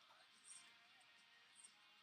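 Faint background music with held and gliding notes, and two small ticks, one about half a second in and one near the end.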